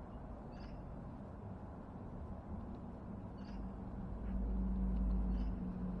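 Three short, high bird chirps, about half a second in, midway and near the end. A low droning hum swells from about four seconds in and is the loudest sound.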